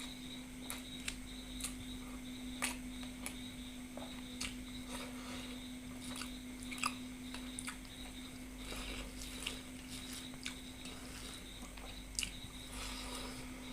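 A person chewing food, with scattered small wet clicks and crunches, over a steady low hum.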